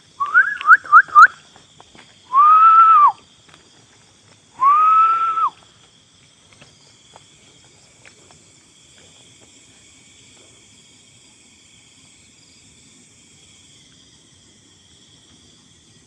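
A person whistling loudly and close: four quick rising chirps, then two long whistles that rise, hold and drop away. A faint steady chorus of night insects goes on underneath.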